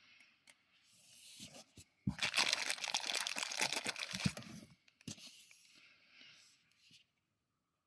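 Close rustling and crinkling handling noise with many small clicks, loudest for about two and a half seconds from around two seconds in, then a few quieter rustles.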